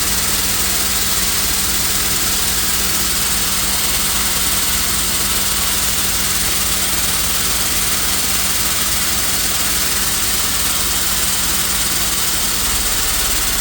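Air-over-hydraulic ram on an engine hoist, its air-driven pump chattering steadily with a fast pulse and a constant hiss of air, then cutting off suddenly at the end.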